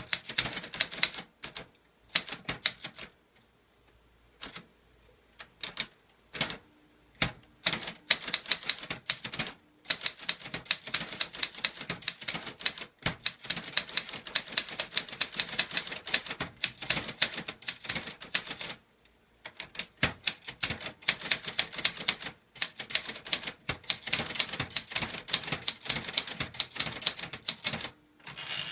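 Clover Top Star 10S Korean typewriter being typed on with its ink ribbon removed, the typebars striking the paper in quick runs of keystrokes. The runs are broken by short pauses, with a longer one about three seconds in.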